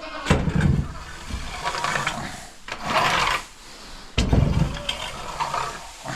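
Custom welded metal coop scraper scraping chicken manure off the coop's shields in about three separate strokes, each with a heavy low thud and a rasping scrape.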